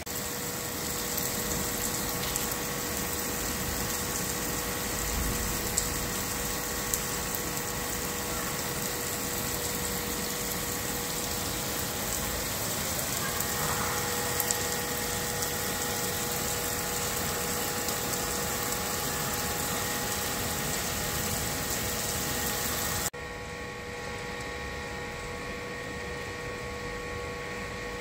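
Heavy rain pouring onto a tiled rooftop and a shade net, a steady hiss with a few scattered drop ticks. Underneath runs a steady machine hum of several held tones. About 23 seconds in, the sound cuts abruptly to a quieter, duller rain.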